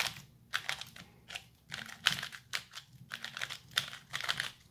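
3x3 magnetic speedcube being turned quickly by hand: a steady run of short plastic clacks and clicks as its layers snap round.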